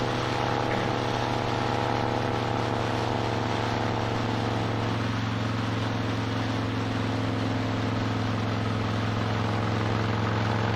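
Honda VTX 1300S V-twin engine running steadily at highway cruising speed, with wind and road noise rushing over the bike.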